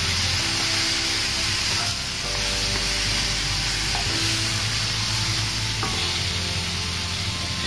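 Chicken pieces and soaked dried mushrooms frying in a hot pan with a steady sizzle, stirred and turned with a wooden spatula.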